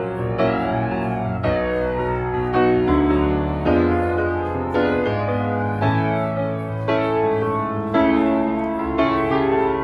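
Background piano music: slow, gentle chords, with a new note or chord struck about once a second over held bass notes.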